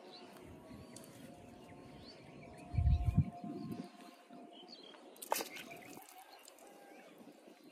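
Small birds chirping faintly in the background, with a brief low thump about three seconds in and a sharp click a couple of seconds later.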